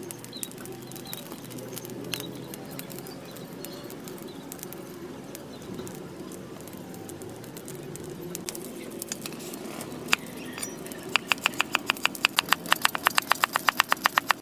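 Low steady background with a few faint clicks, then, about eleven seconds in, a cleaver starts chopping fast through lemongrass stalks on a wooden chopping block: sharp, even knocks several times a second.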